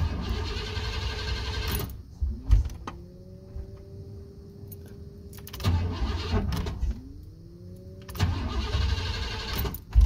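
1997 Chevrolet C1500 pickup's starter cranking the engine in three tries of one to two seconds each, and the engine does not catch. Before each try the electric fuel pump whines up to speed and holds a steady hum. There are a couple of sharp clicks between the first two tries. This is a crank-no-start that the owner takes for moisture in the distributor after a swing from cold to hot, humid weather.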